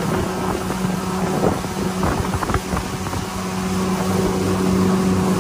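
Outboard motor running at a steady pitch as an aluminium Quintrex boat travels across choppy water, with scattered knocks of the hull meeting the waves.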